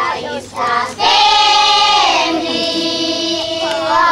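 Background music with high singing voices; about a second in, the singing swells into loud, long held notes.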